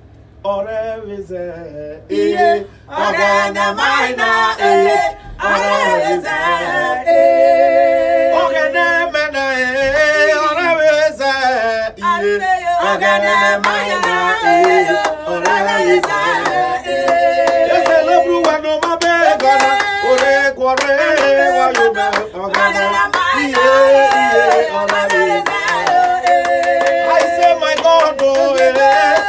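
Male and female voices singing a gospel song together, with hand claps.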